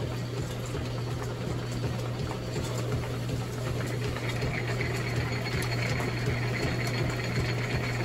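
Drill press running with a steady low hum, its bit cutting into a newly cast malleable iron rail section; a higher cutting note joins about halfway through.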